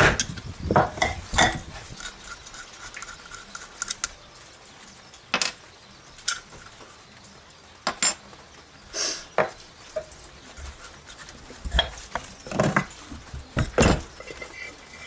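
Irregular metal clinks and knocks of wrenches and engine parts handled on a workbench, some ringing briefly, as the generator cover and stator coil of a Honda 750 motorcycle are turned over and taken apart.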